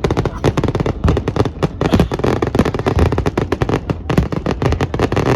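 Aerial fireworks going off in rapid succession: a dense run of sharp bangs and crackles, many a second, with no let-up.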